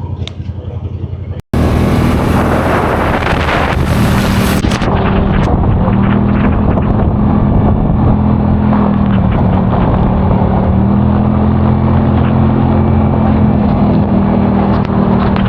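Side-by-side UTV engine running steadily under way, with wind and rolling noise over it. A short dropout about a second and a half in is followed by the louder engine sound.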